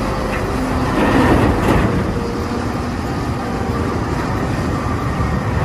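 Caterpillar 992G wheel loader's diesel engine running steadily under load while its bucket tips earth into a dump truck, with a louder rush of pouring material about a second in.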